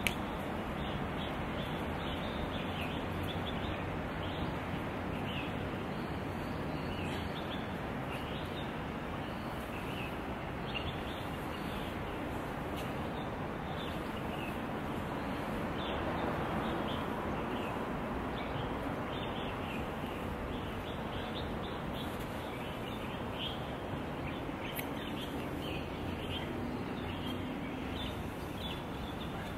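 Outdoor ambience: many short bird chirps over a steady background hiss and hum.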